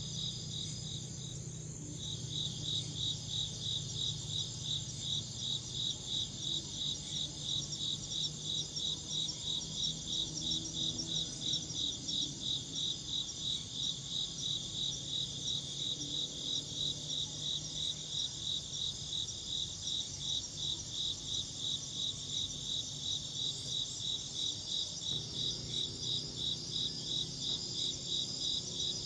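Insect chirping in a steady, even rhythm of about two or three chirps a second. The chirps drop out briefly near the start, then resume.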